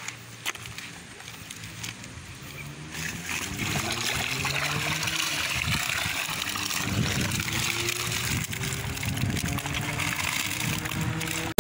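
Pond water splashing and trickling as a keepnet full of common carp (ikan mas) is hauled out at the bank, the fish thrashing inside; it grows louder about three seconds in.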